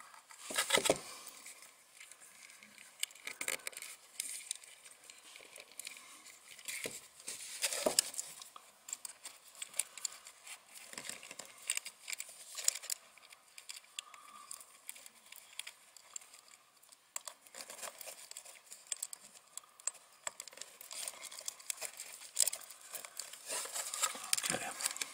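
Breadboard jumper wires being handled as their female connectors are pushed onto the header pins of an L298 motor controller board: irregular light plastic clicks and rustling, with louder clicks about a second in and around eight seconds.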